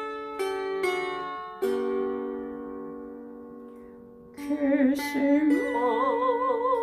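Lyre mini harp played by plucking, single notes ringing and slowly fading in a slow introduction. About four seconds in, a singing voice with strong vibrato comes in over the harp.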